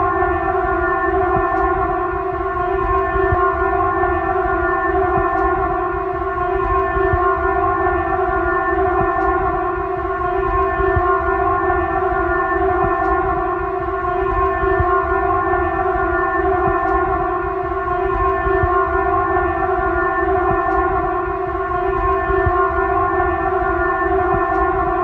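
Emergency alert siren tone held on one steady pitch without any rise or fall, over a low rumbling noise.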